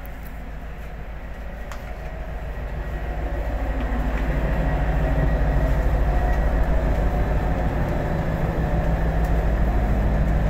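Diesel engine in the power pack of a Greater Anglia Class 755 bi-mode train, running with a low steady rumble and hum. The sound grows louder over the first few seconds, then holds steady.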